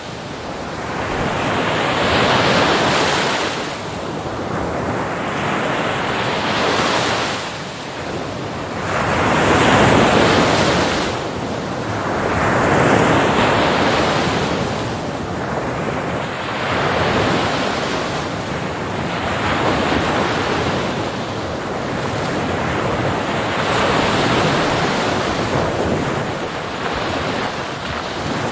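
Ocean waves breaking on a beach, the surf rising and falling in a continuous wash of several swells, each lasting a few seconds.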